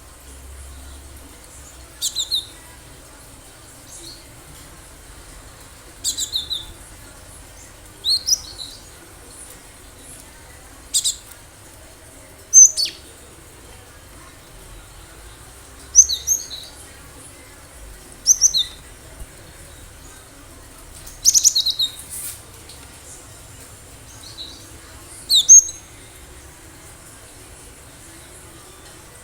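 Cinereous tit calling: short bursts of two or three high, quick notes, repeated about every two to three seconds.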